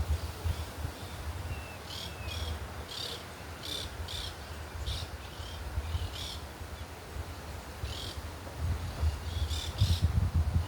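Small birds chirping in short, irregular high-pitched calls, often in pairs, with a couple of brief sliding notes. Wind rumbles on the microphone throughout and gets louder near the end.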